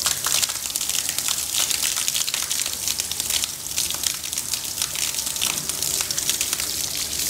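A steady gush of water pouring from an open overhead tap and splashing onto a wet concrete floor.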